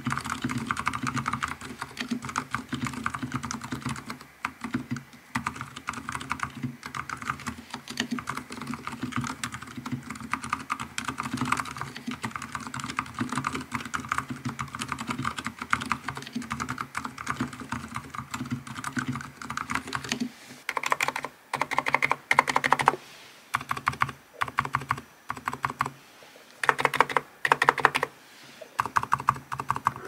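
Nuphy Halo75 keyboard with TTC Silent Bluish White switches being typed on fast, a quiet, soft, bubbly keystroke sound. About two-thirds of the way through, the steady typing breaks into short separate bursts of keystrokes with brief pauses between them.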